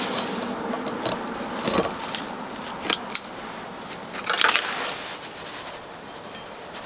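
Small objects being handled: rustling and scraping with several sharp clicks and light clinks.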